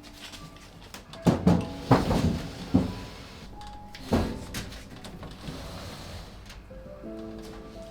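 A handful of knocks and thuds from household things being moved and set down in a small room, the sharpest four coming between about one and four seconds in. Soft background music plays underneath.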